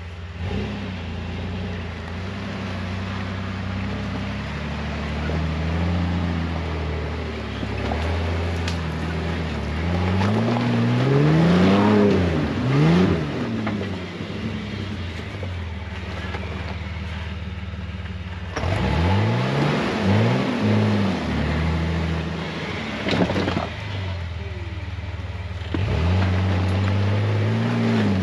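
Jeep Wrangler TJ engine revving up and easing off again and again under load, as on a steep off-road climb; the pitch climbs and falls in surges about a third of the way in, just past the middle, and near the end.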